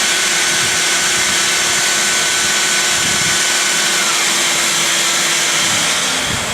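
Porter-Cable 371 belt sander with a 60-grit belt running along with a Festool dust-extraction vacuum drawing through its hose, a steady loud whine over rushing noise. The whine drops in pitch about four seconds in and stops near the end, leaving a softer rushing hiss.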